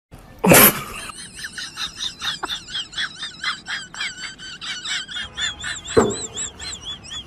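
A loud burst about half a second in, then a rapid, even run of high chirping squeaks, about four or five a second. Near the end a single clatter sounds as a plastic basin hits the pavement.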